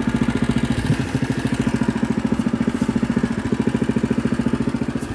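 Small engine of a ride-on lawn machine running steadily, with an even, fast pulsing beat, a brief knock about a second in.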